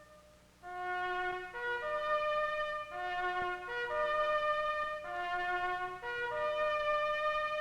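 Marching band brass, led by trumpets, playing a short stepped fanfare figure three times in a row, the last ending on a long held note.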